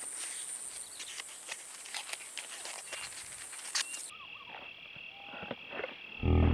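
Swamp ambience: a steady high-pitched insect drone with scattered ticks. About four seconds in it switches abruptly to a lower steady insect tone with a few short chirping calls. Near the end there is a brief, loud, low-pitched sound.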